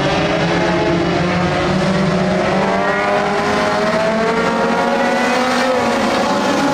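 Several dirt-track race car engines running hard together in a racing pack, their pitches rising and falling as the cars accelerate and lift on the oval.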